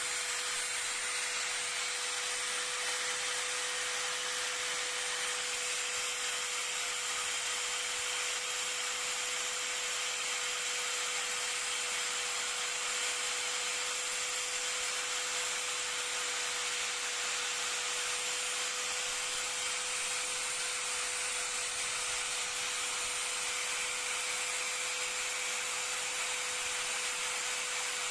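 Electric angle grinder with a thin cutting disc running steadily, a constant whine over a grinding hiss, as it grinds away the plastic body of an ABS wheel-speed sensor to expose the broken wire for soldering.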